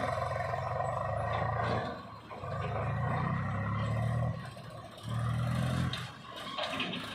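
Diesel engine of a JCB 3DX backhoe loader running under load while digging and loading mud. It surges louder three times, dropping back briefly between the surges.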